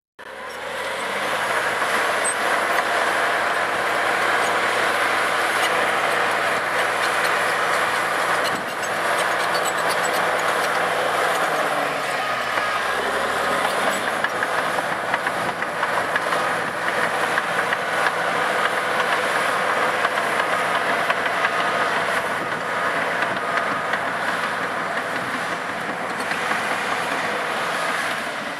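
Cat D8R crawler bulldozer's diesel engine working under load while pushing dirt, with its steel tracks clanking. The engine note drops and climbs again about twelve seconds in, and a faint repeated beeping is heard midway.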